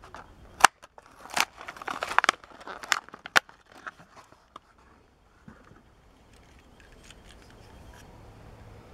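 A Hot Wheels blister card being torn open by hand: the clear plastic blister crackles and the cardboard backing rips, in a quick run of sharp crackles over the first four seconds or so.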